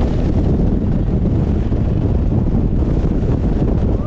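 Wind buffeting the microphone of a camera on a moving motorcycle: a loud, steady, low rumble.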